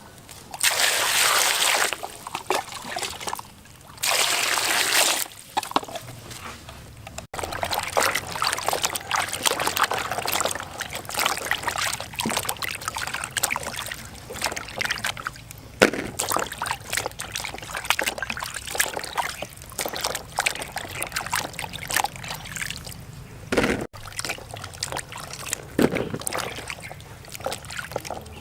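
Water pouring in two short spells near the start, then splashing and sloshing with scattered light knocks, as from produce being washed by hand.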